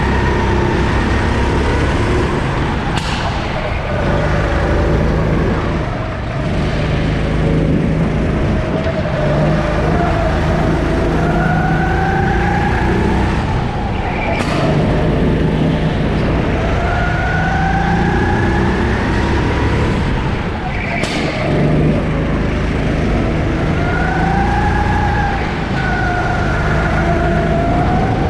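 Sodi 270cc four-stroke kart engine heard from on board, its pitch rising through a few seconds of hard acceleration on each straight and dropping as the throttle is lifted for the corners. A few sharp clicks are heard, about a quarter and half of the way in and again three quarters through.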